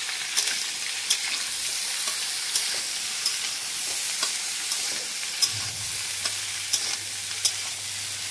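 Mixed vegetables sizzling as they fry in hot oil in a metal kadai. A metal spatula scrapes and knocks against the pan about once a second as they are stirred.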